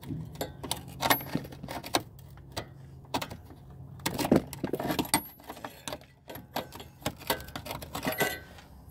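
Metal hand tools clinking and knocking irregularly against a rusted suspension bolt and the car's subframe as a tool is worked onto the bolt, with a few brief metallic tings.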